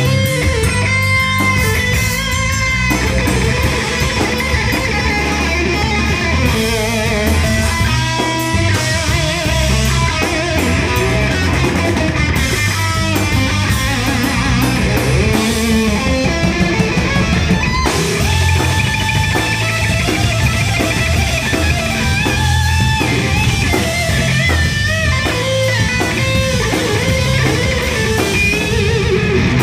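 Live rock band playing: electric guitar lines over bass guitar and a drum kit.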